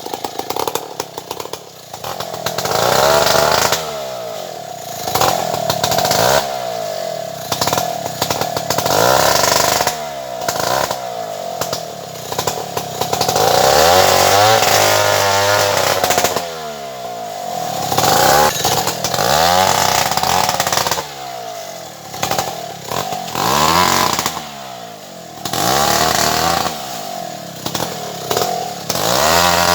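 Stihl 070 two-stroke chainsaw running loud, its engine speed rising and falling over and over every couple of seconds.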